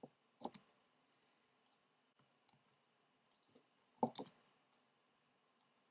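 Sparse, quiet clicks of a computer keyboard and mouse during code editing, with a louder cluster of a few clicks about four seconds in, over near-silent room tone.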